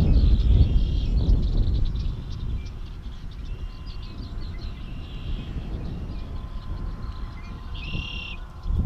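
Wind buffeting the microphone with a low rumble, strongest in the first two seconds, and birds calling in short trilled phrases several times, the clearest one near the end.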